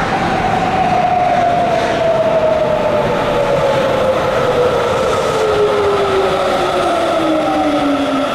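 Sapporo subway 5000 series rubber-tyred train pulling into the station and slowing. Its motors give a whine that falls steadily in pitch through the braking, over the continuous rumble of the cars rolling past.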